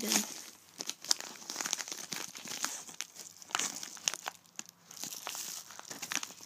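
Yellow padded mailing envelope being torn open and rummaged by hand: irregular paper crinkling, crackling and tearing, with a brief lull a little after four seconds.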